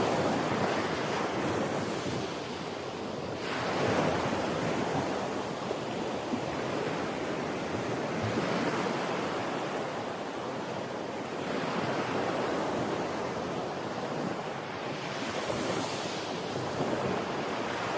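Ocean surf: waves breaking and washing up, a steady rushing hiss that swells with each new wave, about 4 s and 12 s in, with a brighter hissing wash near the end. Some wind buffeting on the microphone.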